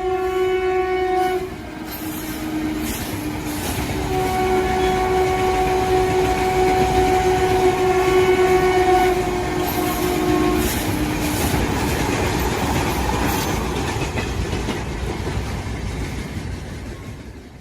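A train passing with its horn sounding: a blast ending about a second in, then a longer one from about four to eleven seconds in, each dropping in pitch at its end. Under it the train's rumble and wheel clatter swell and then fade away.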